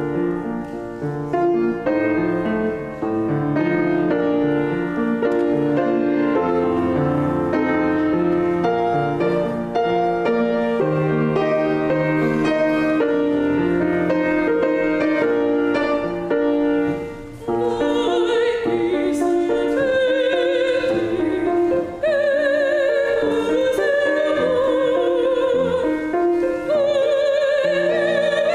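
Piano playing a slow, classical-style offertory piece. About seventeen seconds in, a solo singer with a wide vibrato joins over the piano.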